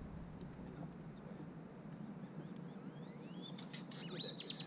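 A small bird singing: a few rising high whistles, then a fast trill of repeated high notes near the end.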